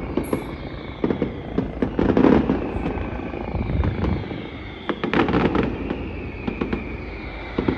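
Mascletà firecrackers going off in a dense, irregular barrage of bangs, with clusters of heavier blasts about two seconds and five seconds in. Under them, the whine of a circling helicopter slowly falls in pitch.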